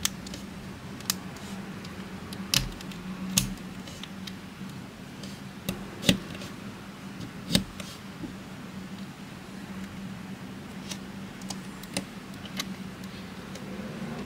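Plastic LEGO Technic parts being snapped and pushed together by hand: a dozen or so sharp, irregularly spaced clicks, the loudest about six seconds in, over a steady low hum.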